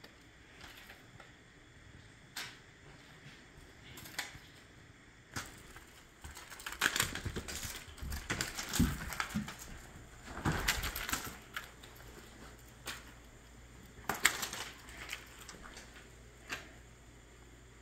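A cat at play: scattered light taps and scratches of paws and claws, with several louder bursts of rustling and scuffling.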